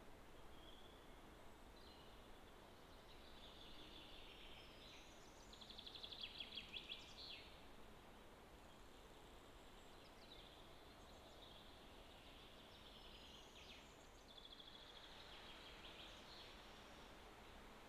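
Faint distant songbirds singing: scattered high-pitched phrases, the loudest a rapid trill of repeated notes about six seconds in, over a quiet outdoor background hiss.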